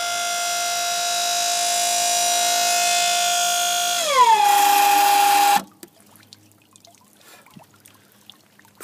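Battery-powered electric motor of a Sunstream Sunlift boat lift running with a steady high whine while the lift lowers. About four seconds in, the pitch slides down to a new steady tone, and a second and a half later the motor cuts off suddenly. Faint water sounds follow.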